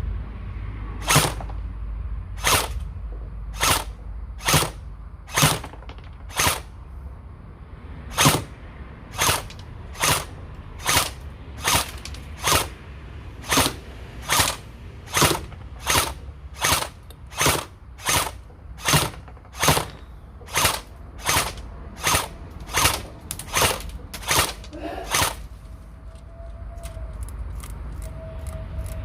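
AK-47 replica electric airsoft gel blaster (AEG) firing single semi-automatic shots, each a short sharp crack, about one every second, some two dozen in a row. The shots stop a few seconds before the end, leaving a steady low rumble.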